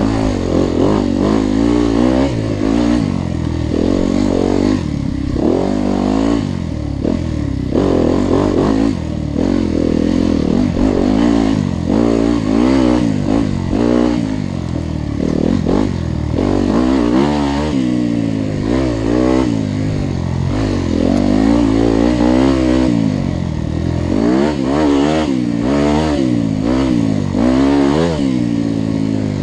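Several motorcycle engines revving up and down over and over, their pitches rising and falling and overlapping, as on a busy riding track, with some clatter.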